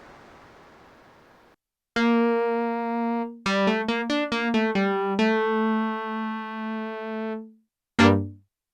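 Korg opsix FM synthesizer playing a bright, keyboard-like patch derived from a DX7 sound: a held note, a quick run of short notes, another held note, and a short final note. First, a hissing tail fades away in the opening second and a half.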